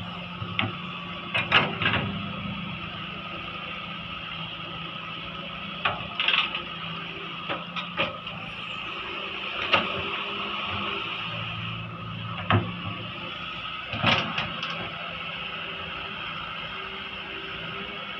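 Heavy excavator running under work, its engine steady with a high whine on top. Sharp knocks come half a dozen times, near the start, around six to ten seconds in, and twice more later on.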